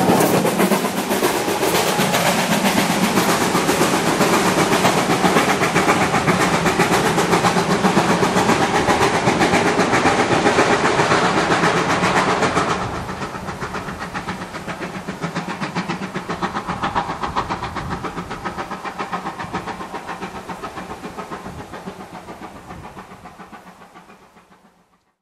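A steam-hauled passenger train running away into the distance, its coach wheels clattering rhythmically over the rails. About halfway through the sound drops suddenly, then it fades away to nothing near the end.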